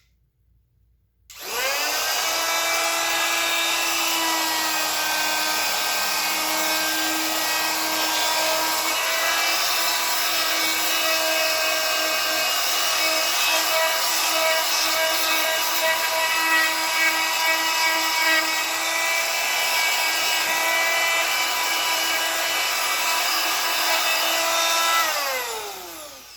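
A handheld electric power tool's motor starting up with a rising whine, running at a steady pitch for about 23 seconds, then spinning down near the end.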